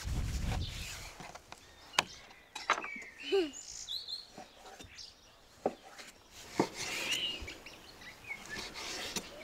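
Knife cutting raw beef on a wooden cutting board, with a few sharp knocks of the blade against the board. Small birds chirp now and then.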